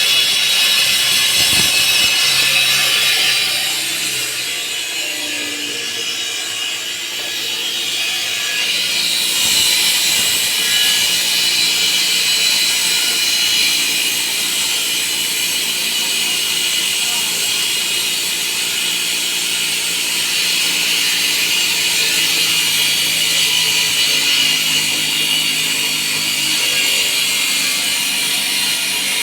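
Power saw cutting concrete: a steady high-pitched blade whine with grinding noise, easing off for a few seconds near the start and then running hard again.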